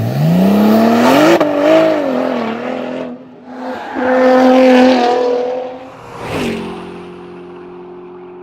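Car engine revving: it climbs steeply in pitch at the start, wavers, and revs again about four seconds in. A sharp whoosh comes near the end, followed by a held engine tone that fades.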